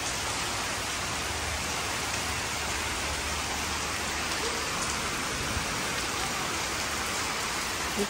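Heavy, continuous rain falling steadily: an even hiss of rain on the ground and surfaces.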